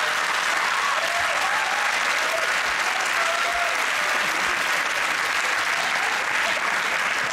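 Studio audience applauding steadily, a dense even clatter of clapping.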